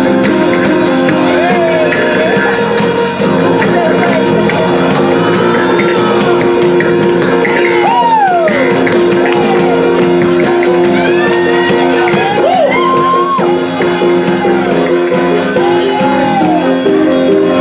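Live church band music: sustained electronic keyboard chords with electric bass underneath, and voices calling out over the music in rising and falling cries.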